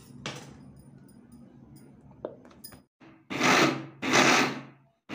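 Electric mixer grinder run in three short pulses, each under a second, grinding soaked rice batter with boiled potato in its steel jar. The pulses come after a couple of light knocks as the jar and lid are handled, and the last one starts near the end.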